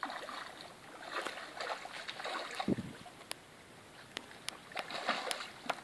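A hooked fish splashing and thrashing at the surface of a river while being played on a rod, in several short bursts of splashing. A few sharp clicks come through in the second half.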